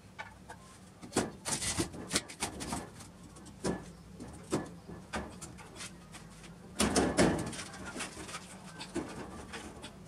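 Blue PVC pipe fittings being handled and pushed together: a string of irregular plastic clicks, taps and scrapes, loudest in a cluster about seven seconds in.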